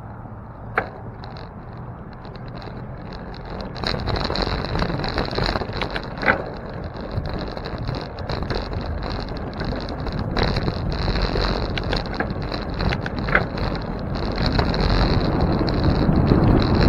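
Bicycle ride heard from a bike-mounted camera: wind on the microphone and tyre and road noise, stepping up about four seconds in and growing as the bike gathers speed, with a few sharp clicks from bumps or rattles.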